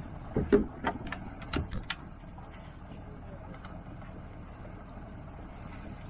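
Steady low rumble aboard a small fishing boat. A quick run of sharp knocks and clicks comes in the first two seconds.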